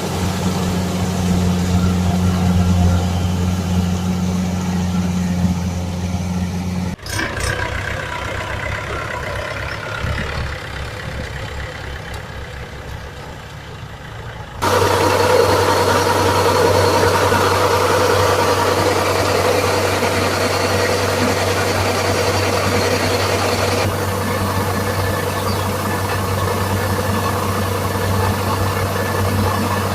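Kubota rice combine harvester's diesel engine running with a steady low hum. The sound changes abruptly about seven seconds in to a quieter stretch, then jumps back to a loud steady run about fifteen seconds in.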